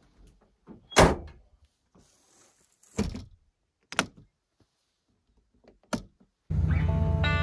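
Toyota Tundra's tailgate slammed shut about a second in, the loudest knock, followed by three lighter thuds as the camper shell's rear hatch is pushed shut and latched. Guitar music comes in near the end.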